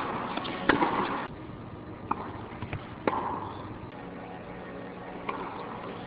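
Tennis ball hits and bounces during a rally on an indoor court: about five sharp pops, the loudest about a second in, some trailed by a short echo from the hall.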